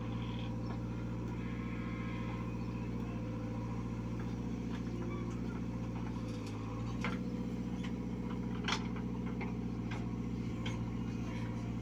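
JCB 3DX backhoe loader's diesel engine running steadily as the backhoe digs and swings soil into a tractor trolley, with a few sharp knocks and clanks. The loudest knock comes about nine seconds in.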